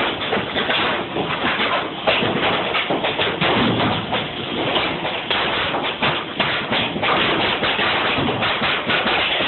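Repeated thuds and taps of wooden pallet repair work, over a steady noisy background.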